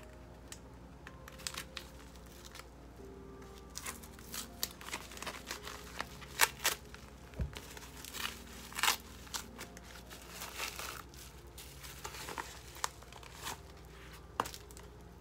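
Plastic packaging crinkling and rustling as a small bag is handled and pulled open, with irregular crackles and a few tearing sounds.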